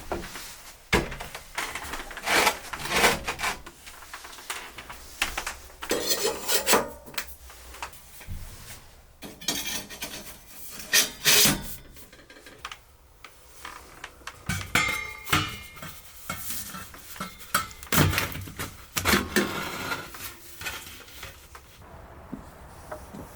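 Irregular clatters, knocks and scrapes of hard objects being handled, coming in uneven bursts.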